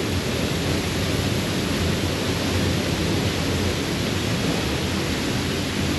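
Steady, even rush of falling water from a waterfall and heavy tropical rain, blended so that rain and falls can't be told apart.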